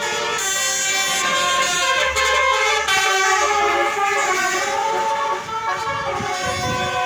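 Tour bus's telolet horn playing a tune: several horn tones sounding together as a chord, stepping up and down in pitch note by note.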